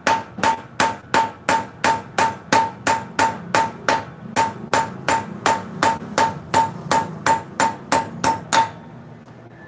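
Hammer blows on a steel wheel stud in the hub of an Isuzu truck's rear wheel, about three a second with a metallic ring, stopping shortly before the end. The stud is being replaced because it has a deep groove worn at its neck.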